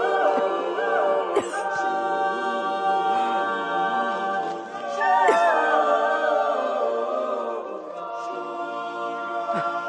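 Women's choir singing a cappella, holding sustained chords, swelling louder with gliding pitches about five seconds in.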